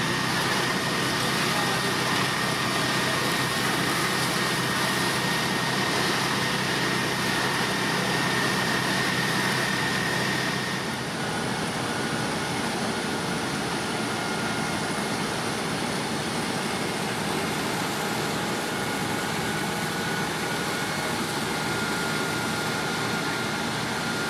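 Fire engines' engines and pumps running steadily, with a thin steady whine over a loud rushing noise that is strongest in the first half, where a hose jet is playing on the building. About halfway through the sound changes abruptly and drops a little, with a whine at a different pitch.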